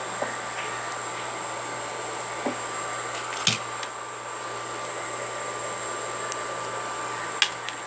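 Steady hiss with a faint high whine, broken by four light clicks or knocks, the loudest about halfway through and another near the end.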